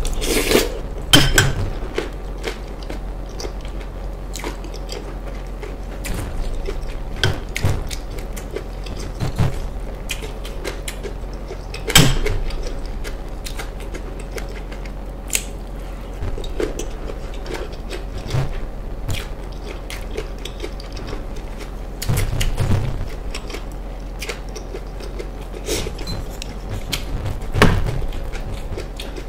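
Close-miked chewing and mouth sounds of eating fish stew with vegetables, broken by sharp clicks and knocks every few seconds from a spoon against the glass bowl.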